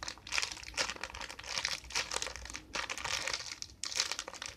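Plastic wrapping crinkling and rustling in uneven handfuls as it is handled.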